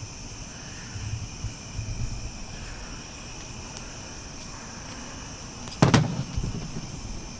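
Crickets chirping steadily on a summer night, with a few soft low knocks, then a sudden loud thump about six seconds in.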